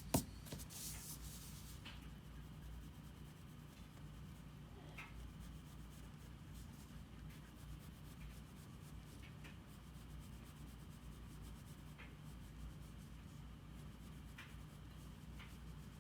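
Faint rubbing and scratching of a drawing tool on paper, with scattered light strokes, over a steady low hum. A sharp click right at the start is the loudest sound.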